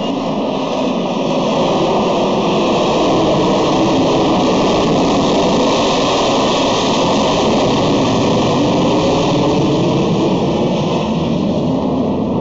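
Harrier jump jet flying past, its Pegasus turbofan making a loud, steady jet noise that builds over the first couple of seconds and then holds.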